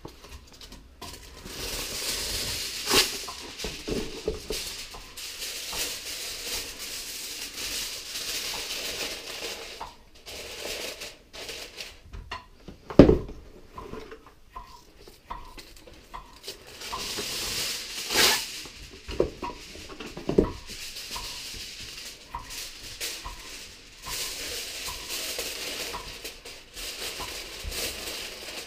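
Aluminium foil being pulled off the roll, torn and crinkled as it is shaped into a tent over a roasting pan, with a few knocks against the pan, the loudest about halfway through.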